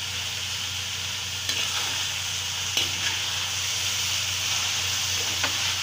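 Chopped vegetables sizzling in hot oil in a metal kadai while a metal ladle stirs and tosses them, with a few knocks of the ladle against the pan.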